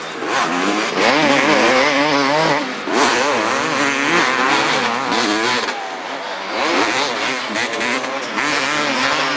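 250cc two-stroke motocross bike engines revving hard and backing off, the pitch rising and falling over and over with the throttle. The sound eases for a moment about six seconds in, then climbs again.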